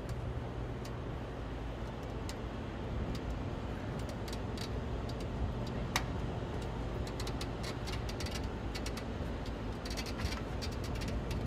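Steady low machinery hum of a warship's deck, with scattered light metallic clicks and rattles from the helicopter's wheeled handling dolly and tow bar as it is pushed. The clicks come thicker near the end, with one sharper click about six seconds in.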